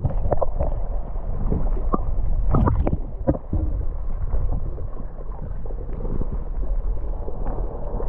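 Muffled sloshing and gurgling of water around a submerged camera, over a steady low rumble, with irregular knocks and splashes, a cluster of them about two and a half seconds in.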